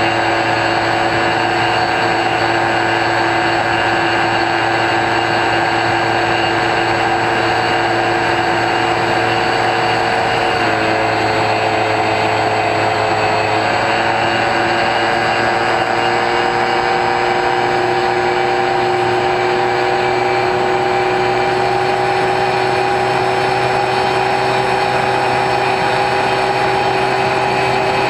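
Electric brushless motor and APC 9x6 pusher propeller of an X-UAV Talon RC plane running steadily in flight, heard through the onboard camera, over a steady hiss. The pitch drops slightly about ten seconds in, then rises slowly.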